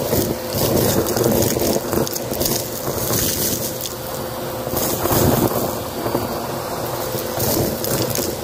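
Vacuum cleaner running with a steady whine, crackling and crunching as it sucks a loose mix of sequins, paper bits and beads off the carpet.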